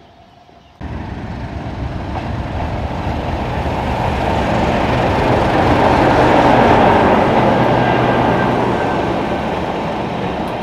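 English Electric Class 37 diesel locomotive with its English Electric 12CSVT V12 engine running as it passes close by, a steady heavy engine drone and rumble. It starts abruptly about a second in, grows louder to a peak about six seconds in, then eases off as the coaches follow.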